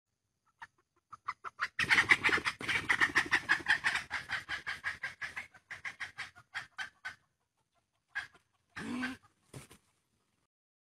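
Jungle fowl alarm cackling: a fast run of sharp calls, about five a second, loudest in the first half, then breaking into a few scattered calls near the end.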